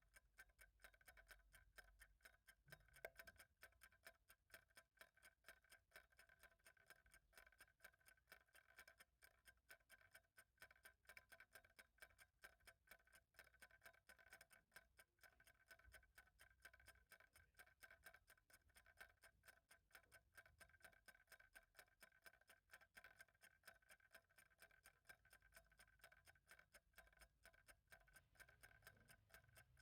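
Clock ticking faintly and steadily, a sharp, evenly spaced tick.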